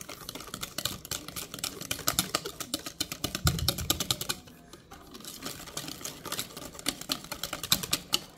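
Metal wire whisk beating a pecan pie filling of eggs, sugar, melted butter and corn syrup in a mixing bowl: rapid clicking and tapping of the wires against the bowl, with a short pause a little past halfway.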